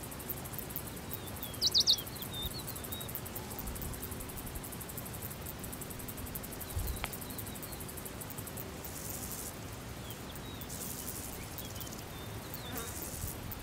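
Outdoor field ambience: a low rush of wind, a fast high insect chirring, and small birds chirping, with a few sharp chirps about two seconds in as the loudest sound and more scattered chirps near the end.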